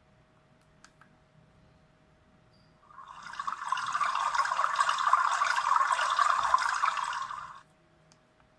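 A water-sound ringtone played through the Huawei MomoDesign MD Touch's small speaker: it starts about three seconds in, runs for about four and a half seconds as a rushing, water-like noise, and cuts off suddenly.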